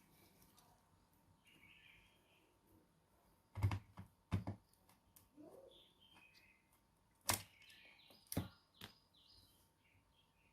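A few sharp knocks, in two quick pairs a few seconds apart, over faint bird chirping.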